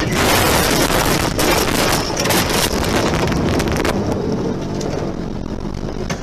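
A car ploughing off a snowy road into deep snow and brush, heard from its dashcam: a loud rough rush of snow and debris hitting the car, with many knocks and scrapes. It eases somewhat after about four seconds.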